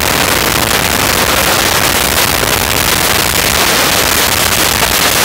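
A field of dirt track race cars running at speed around the oval, their many engines blending into one loud, steady wash of noise.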